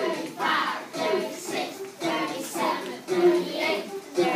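Children singing.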